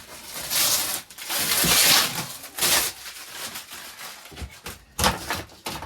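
Packaging being torn and pulled off a stove's box, in several noisy ripping bursts over the first three seconds. A sharp snap or knock comes about five seconds in.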